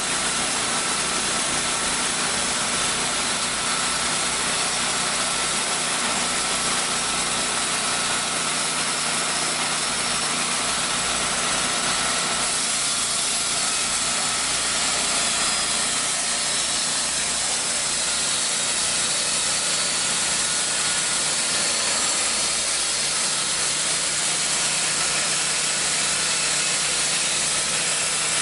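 Gasoline engine of a TimberKing portable sawmill running steadily, with a slight change in tone about twelve seconds in.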